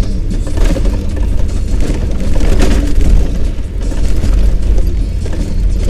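Low rumble and thumps inside a car's cabin as it drives slowly over a rough, wet, potholed dirt road, with knocks as the suspension takes the bumps.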